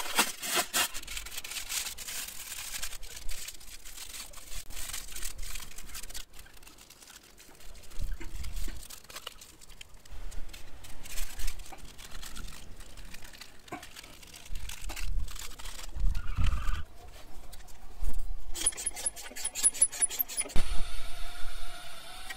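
Hands and tools working on a motorcycle: scattered knocks, clicks and rubs of parts being handled, a few dull thumps, and a fast run of even clicks near the end.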